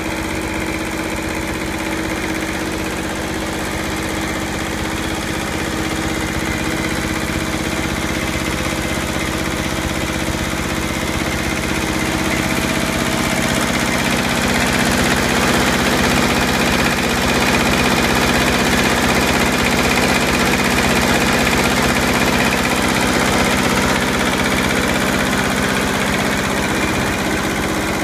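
Kubota L200 tractor's diesel engine idling steadily, a little louder in the middle stretch.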